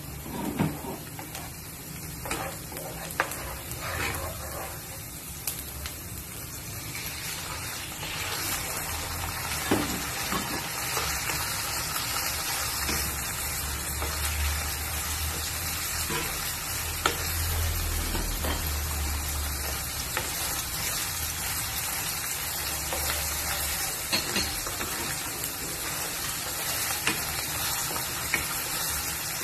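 Minced garlic frying in oil in a nonstick pan, stirred with a wooden spatula that knocks and scrapes against the pan. About eight seconds in the sizzling grows louder and stays so as sliced raw chicken fries and is stirred.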